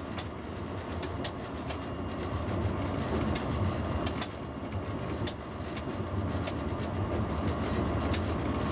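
Running sound inside a moving diesel locomotive's cab: a steady low drone, with sharp wheel clicks over rail joints and switches about once a second at irregular spacing.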